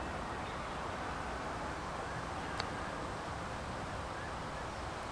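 Steady, even outdoor background rush with no distinct source, and one faint click about two and a half seconds in.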